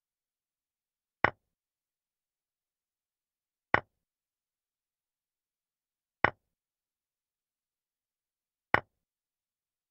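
Chess-move sound effect: four short knocks, one every two and a half seconds, each marking a piece moving or capturing on the animated board.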